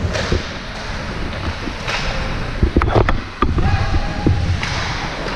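Ice hockey game ambience in a rink: a steady wash of skate and crowd noise with faint distant voices, and a few sharp clacks of sticks and puck about three seconds in.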